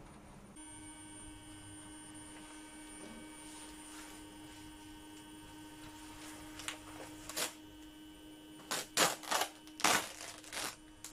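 A clear plastic sheet crackling as it is peeled back off the top of a stingless-bee hive, after a few short scraping strokes of a blade along the hive lid's edge. A steady hum with a high whine runs underneath.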